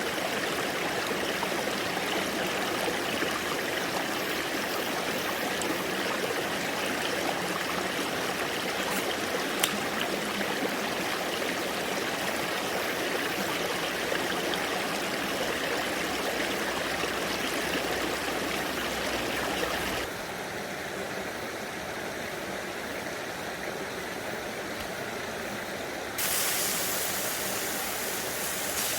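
Valley stream flowing, a steady wash of water. One small click sounds about a third of the way in, and the water sound shifts abruptly twice: quieter about two-thirds through and brighter near the end.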